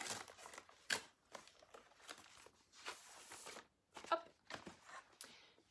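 Paper packaging being torn open and rustled by hand as a mailed book is unwrapped: soft crinkling with a few sharp crackles.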